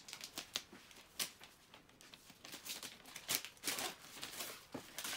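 Gift-wrapping paper being torn and crinkled by hand as a present is unwrapped: irregular short rips and crackles, the loudest about three to four seconds in.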